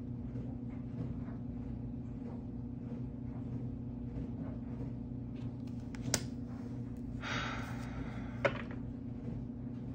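Steady low hum, with a sharp click about six seconds in, a short rustle a little over seven seconds in, and another click just after it.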